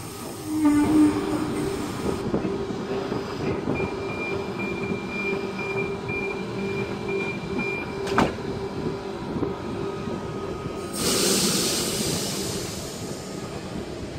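Double-deck electric passenger train running at the platform: a steady electrical hum, a high whine for a few seconds, a sharp clunk about eight seconds in, then a burst of air hiss about eleven seconds in.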